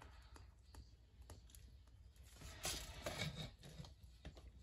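Faint scratching of a felt-tip pen writing on paper and light clicks of a cloth tape measure being handled, a little busier about three seconds in.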